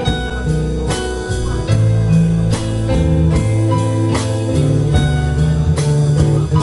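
Instrumental band music: guitar over held bass notes and drums keeping a steady beat, with no singing.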